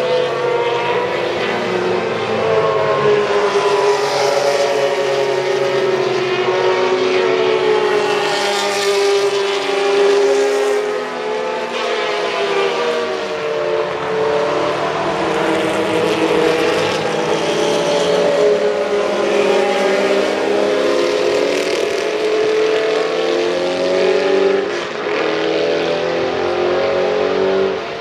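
Several Group C sports-prototype race car engines running on track at once, their overlapping pitches rising and falling as the cars accelerate and slow through the corners.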